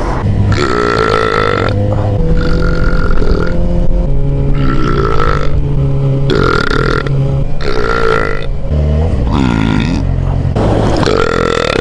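A man belching over and over: about six long, drawn-out burps in a row, their pitch wavering.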